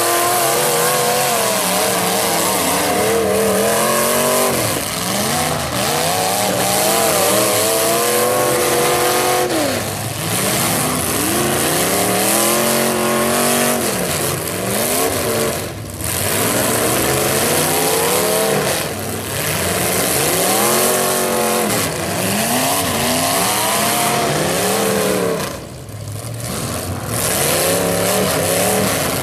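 Demolition derby cars' engines revving hard through open header pipes, pitch climbing and falling over and over as the cars accelerate and push into each other, with a few engines running at once.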